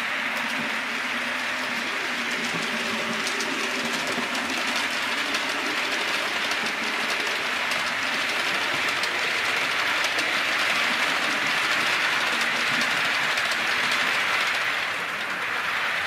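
A 4mm-scale model train, a King Arthur class steam locomotive model hauling a rake of coaches, running over the layout's track: a steady whirring rush with quick clicks of the wheels over rail joints. It grows louder as the train passes and eases off near the end.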